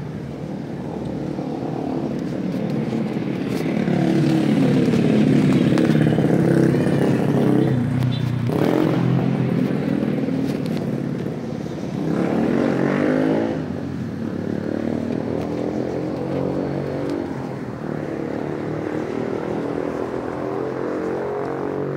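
Street traffic: a motor vehicle engine running close by, swelling over the first few seconds and rising again about halfway through, with the rubbing and knocking of a handheld camera against clothing.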